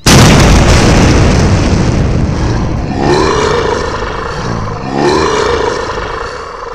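Explosion sound effect, a sudden loud boom that rumbles on and slowly fades. About three seconds in and again about five seconds in comes a long dinosaur roar sound effect.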